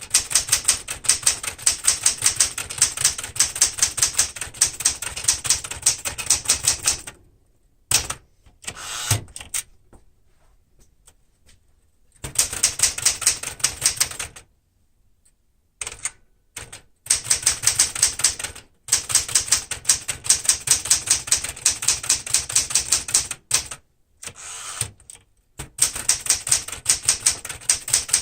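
Serviced 1973 Smith-Corona Galaxie Twelve manual typewriter being typed on quickly: fast, even runs of key strikes broken by a few short pauses.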